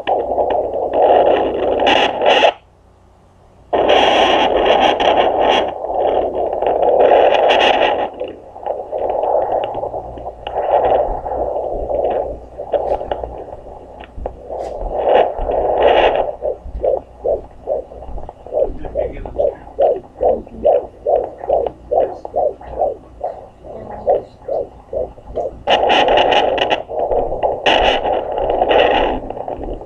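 A handheld fetal Doppler's speaker giving a whooshing static, with louder scraping rushes as the probe slides over the gel-covered belly. It drops out for about a second near the start. Through the middle it picks up a fast, even pulsing of about two and a half beats a second, which the mother takes for the baby's heartbeat at roughly 143–145 beats a minute.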